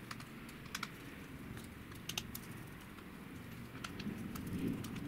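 Small screwdriver unscrewing the tiny battery screws in a Dell XPS 12 laptop: scattered light clicks and ticks, some in quick pairs, at an uneven pace.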